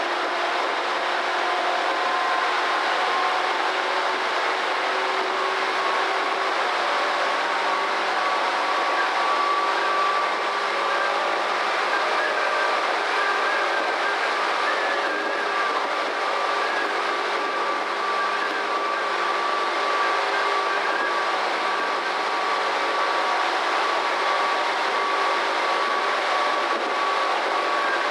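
Tobu Railway electric commuter train running at speed, heard from inside the front car: a steady rush of wheel and rail noise with a faint motor whine that creeps slightly up in pitch.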